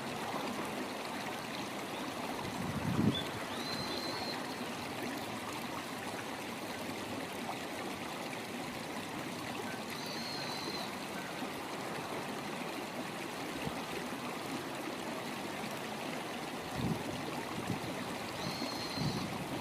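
Steady rush of a shallow river running over stones. Three short, faint, high small-bird calls come a few seconds in, about halfway, and near the end, and a brief low thump sounds about three seconds in.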